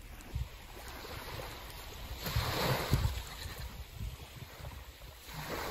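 Waves washing on the shore, with wind buffeting the microphone. A louder wash of noise comes about halfway through.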